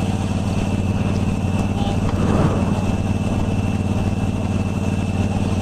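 Engine running steadily at idle: a low, even hum with a faint high steady whine over it.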